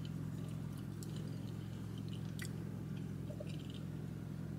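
A person chewing food with the mouth full, with small scattered clicks, over a steady low hum.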